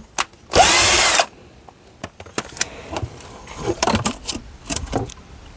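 Cordless drill-driver runs once for a little over half a second, its motor pitch rising. Then several light knocks as the wooden hive box is handled.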